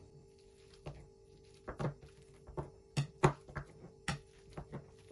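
Boiled sweet potato being mashed on a plate with the bottom of a drinking glass: a string of short, dull knocks, about two a second and unevenly spaced, as the glass is pressed and tapped down through the soft potato onto the plate.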